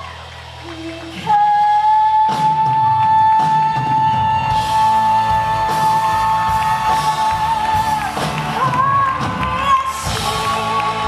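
A female singer performing live with a band. After a quiet first second she holds one long high note for about seven seconds while the band and drums come in under her, then sings a run of shorter, moving notes near the end.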